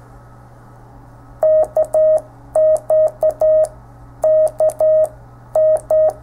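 Morse code from a Pixie QRP CW transmitter kit, received on an ICOM IC-745 transceiver. A steady mid-pitched tone is keyed on and off in dots and dashes by a push-button, with a faint click at each key-down and key-up, in four short groups starting about a second and a half in. A low steady hum runs underneath.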